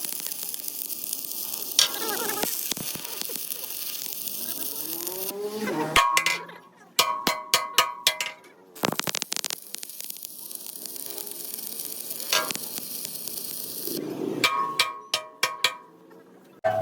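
Arc welding on steel, a steady crackling sizzle held for several seconds twice, with spells of ringing metallic clinks and strikes between the weld runs.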